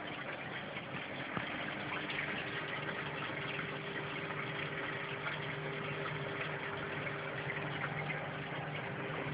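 Reef aquarium sump: water splashing down from a T-shaped drain pipe onto filter sponges and into the chamber, a steady rush of running water with a low, steady pump hum underneath.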